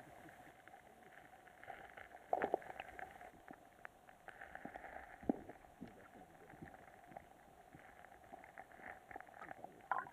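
Muffled underwater sound picked up by a submerged action camera in a stream: faint water noise with scattered small clicks and a few soft knocks, the loudest about two and a half seconds in.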